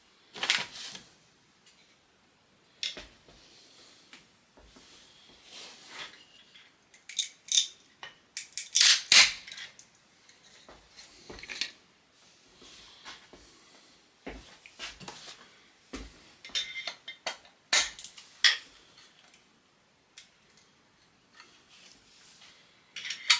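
Irregular metallic clinks, knocks and short scrapes of hand work on filled aluminium extrusion profiles, with brief quiet gaps between.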